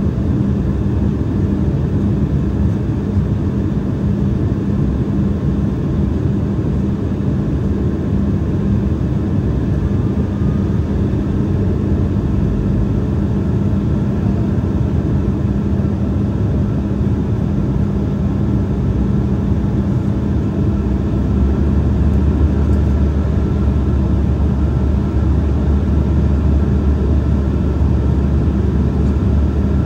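Cabin noise of an Embraer E175 airliner in flight: a steady rush of airflow and the hum of its CF34 turbofan engines. About two-thirds of the way through, a deeper low rumble comes in and the sound grows slightly louder.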